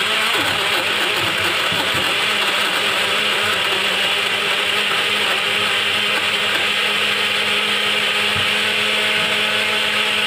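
Vitamer 500 ml portable blender running steadily, blending mango chunks and milk into a smooth shake. Its motor hum is steady and continuous.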